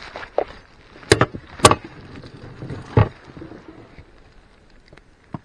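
Three sharp knocks and a few light clicks of handling in an inflatable rubber boat, from a small pike and the gear being handled while the fish is unhooked.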